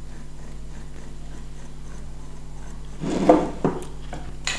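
Steady low hum, then about three seconds in a short clatter followed by a couple of sharp knocks as the hard acrylic and metal parts of the engraver frame are handled.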